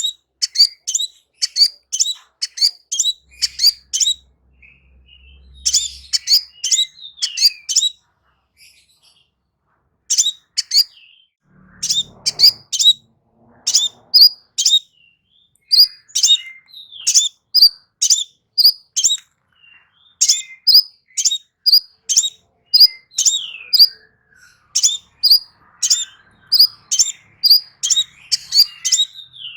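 Crimson sunbird singing: runs of sharp, very high chips, several a second, with a brief pause about eight seconds in.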